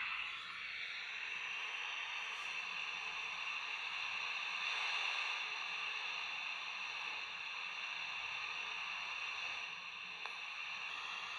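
Steady static hiss from the speaker of a small RW08-11 AM/FM kit radio, tuned off-station between stations while under test.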